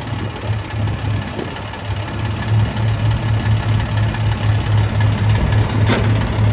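Diesel engines of a grape harvester and the tractor running beside it as they harvest a vine row: a steady low drone that pulses about three times a second. A single sharp click comes near the end.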